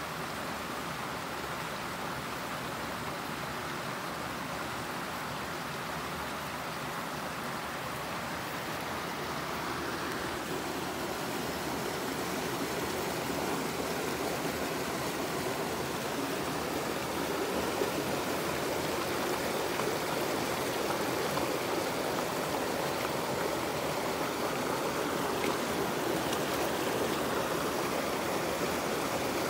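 Small creek running over rocks: a steady rush of water that grows somewhat louder partway through.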